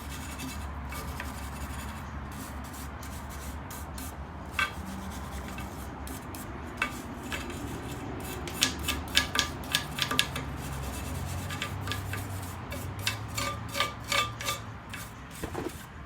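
Scraping and rubbing on used metal drum brake parts as they are cleaned, with a steady low hum underneath. Two runs of sharp metal clinks come about eight and thirteen seconds in.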